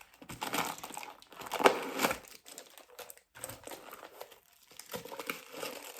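Packaging crinkling and rustling in irregular bursts, with some tearing, as a handbag is unwrapped by hand; the loudest rustle comes about a second and a half in.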